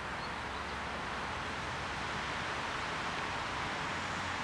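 Steady rustling hiss of wind in the trees, with a faint low rumble underneath and no distinct events.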